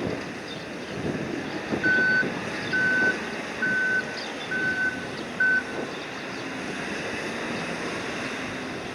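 Electronic warning beeper on cargo-handling machinery sounding five times, about one short beep a second, over a steady mechanical background.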